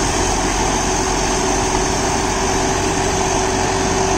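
John Deere 5075E tractor's 2.9-litre common-rail diesel engine running steadily under load, driving a Shaktiman Tusker rotary tiller through the PTO as it chops banana stalks into mulch. It is a constant drone with a steady hum, unchanging throughout.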